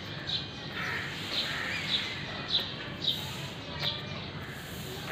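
A small bird chirping over and over, short high chirps about every half second, over a steady background hum.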